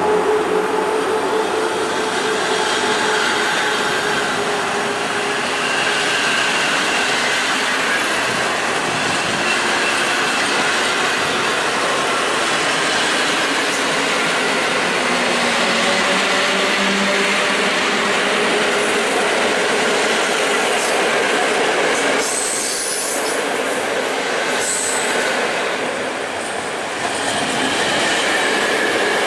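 Two PKP Intercity passenger trains pulling out side by side behind EP07 electric locomotives. The coaches of one roll close past with a steady rumble of wheels on rail, with thin tones that slide in pitch throughout and a spell of clicking about three quarters of the way through.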